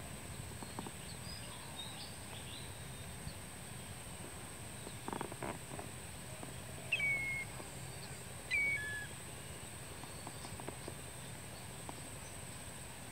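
Two short whistled bird calls about a second and a half apart, each a quick upward slur that settles on a held note. A few faint high chirps come in the first few seconds. Under them runs a steady hiss with a constant high whine.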